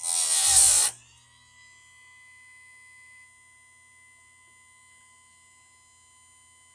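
Electric chainsaw-chain sharpener: the grinding wheel bites a chain tooth with a loud grinding rasp lasting about a second, then the motor runs on with a faint steady whine and hum.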